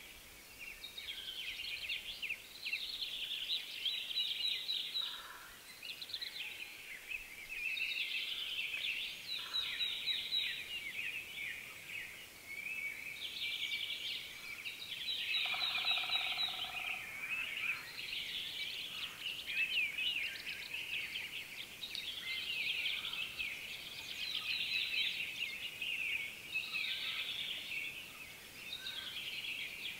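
A chorus of many songbirds singing at once, their high songs overlapping almost without a break, with an occasional lower call standing out.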